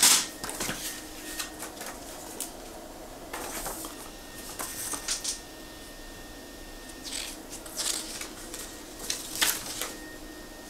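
Scattered clicks, taps and rustles of CD cases and their packaging being handled, in short separate bursts with quiet between them.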